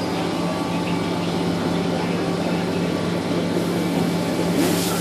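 Mazak 410A vertical machining center running under power: a steady mechanical hum with a low steady tone under it. A hiss comes in near the end.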